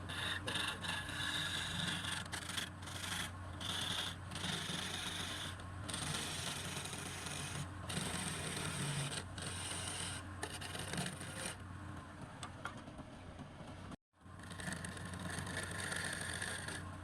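Wood being turned on a lathe: a tool or abrasive rubbing and scraping against the spinning workpiece over a steady low motor hum. The sound cuts out for an instant about three-quarters of the way through.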